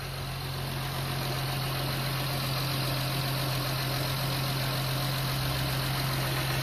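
Car engine running steadily: a constant low hum with an even hiss over it, rising slightly in level in the first second. The engine is still cold and warming up, with the radiator cap off, so that air can bleed from the freshly refilled cooling system.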